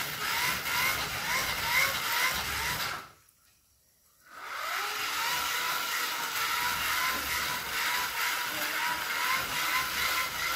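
Small handheld air blower fanning the charcoal under a grill, whirring with a whine that wavers in pitch. It cuts off about three seconds in, then spins back up with a rising whine a second and a half later and runs on steadily.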